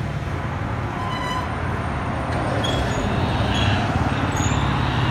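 Street traffic: a steady low engine hum with road noise as a car drives along the road, growing slightly louder toward the end.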